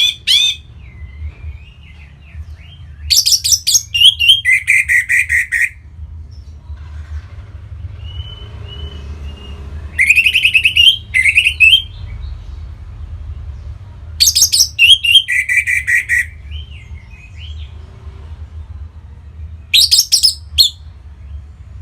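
Orange-headed thrush singing in about four bursts a second or two long, each quick rattling notes run together with whistled notes, with pauses of a few seconds between them. A steady low hum runs underneath.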